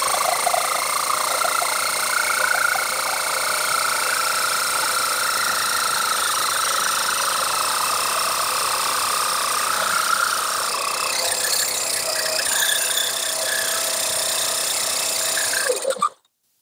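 Corded electric drill running steadily with a diamond-tipped hole-cutter bit grinding into the fired clay base of a pot. The motor whine holds steady and cuts off suddenly near the end.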